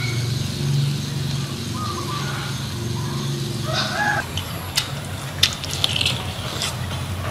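Domestic chickens clucking, with a short call about four seconds in. From about five seconds in come sharp clicking mouth sounds of someone biting and chewing grilled squid.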